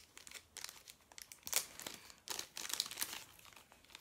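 Clear plastic wrapping crinkling as it is handled and pulled off a camera battery, a run of short sharp crackles loudest about halfway through.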